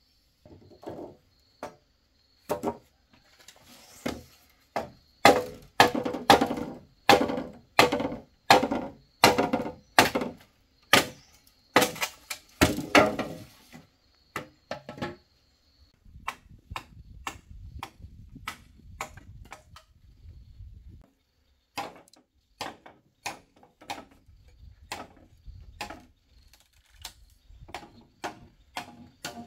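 Repeated chopping blows of a blade into wood, about one to two a second and at their loudest through the first half, then lighter and more irregular after a short pause.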